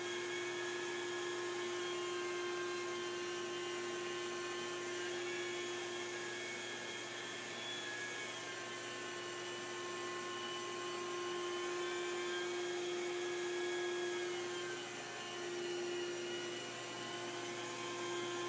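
Carpet-cleaning machine running steadily: a rotary extraction head working over carpet with a portable extractor's vacuum pulling through the hose. A steady hum with a higher whine that wavers slightly.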